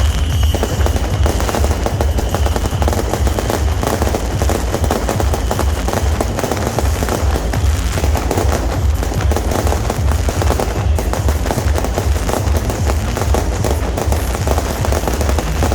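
Beehive fireworks, massed bottle rockets firing together, give an unbroken rapid crackle of bangs like machine-gun fire over a steady low rumble.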